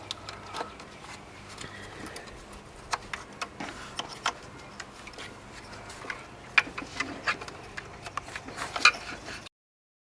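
Irregular light clicks and taps of hand work on plastic intake parts and clips in a car's engine bay, over a faint steady hum. The clicks come more densely near the end, then the sound cuts off suddenly.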